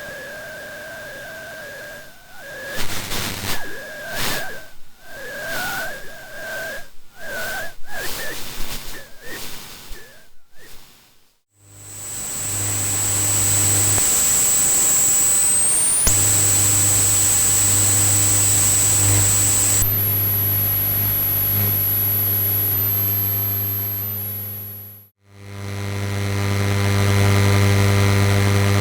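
A sequence of electrical glitch sound effects. For about the first eleven seconds a wavering whine stutters, cutting in and out. Then comes static hiss over a low hum, with a high-pitched whine that rises, breaks off and comes back higher, and near the end a loud electrical buzz, a mains-type hum with many overtones.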